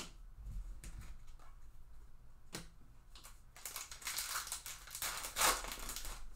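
Trading-card pack wrapper being torn open and crinkled, a dense crackle that starts about three and a half seconds in and is loudest near the end. A few light clicks come before it.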